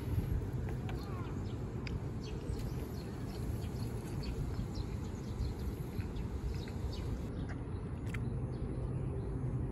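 Outdoor ambience: a steady low rumble, as of wind or distant traffic, with many short bird chirps scattered over it.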